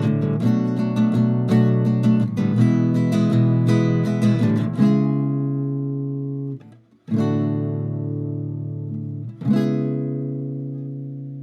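Acoustic guitar music: quick picked notes, then three chords struck and left to ring out, each one fading.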